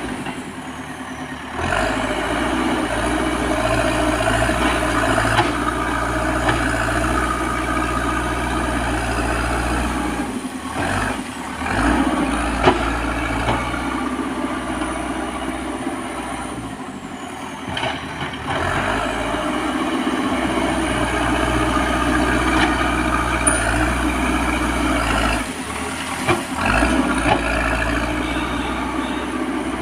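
Backhoe loader's diesel engine running under working load, rising and falling in level. It cuts out abruptly and resumes several times.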